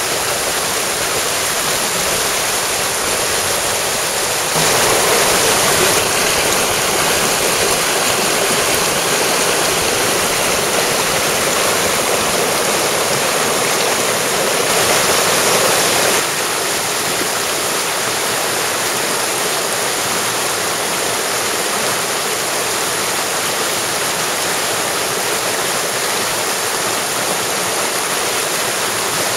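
Mountain stream rushing over rocks, a steady wash of water noise. It steps up suddenly about four and a half seconds in and drops back suddenly about sixteen seconds in.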